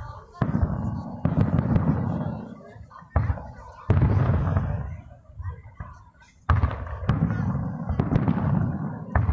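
Aerial firework shells bursting one after another, about six booms, each sharp bang trailing off in a low rumble.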